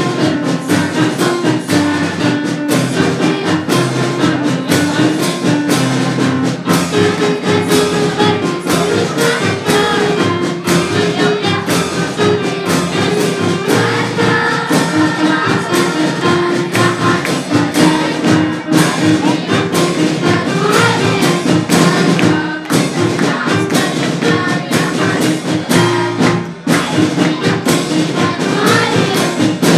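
Live performance of a children's choir singing with a band of brass, keyboard and drums, the drums keeping a steady beat.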